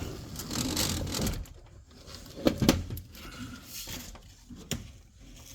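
Handling noises from a car door's loosened inner trim panel and parts: a rustle, then two sharp clacks in quick succession about two and a half seconds in, and a lighter click near the end.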